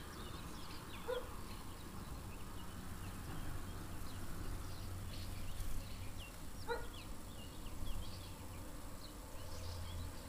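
A flock of barn swallows twittering in flight: many short, high chirps scattered throughout, over a low steady hum. Two short, lower yelps stand out, about a second in and again near seven seconds.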